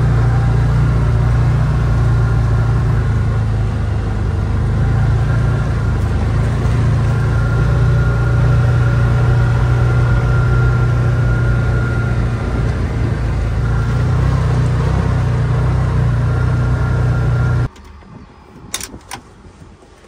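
Can-Am Defender side-by-side UTV driving, heard from inside its cab: a steady engine and drivetrain drone with a faint whine. It cuts off suddenly near the end, followed by a few light clicks of the door latch.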